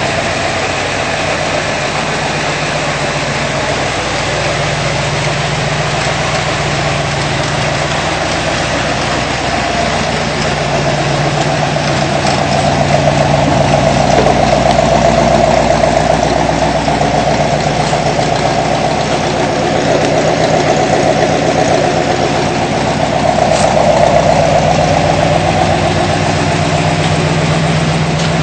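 Chevrolet Corvette C3's V8 engine idling steadily through its new exhaust system, swelling a little louder twice.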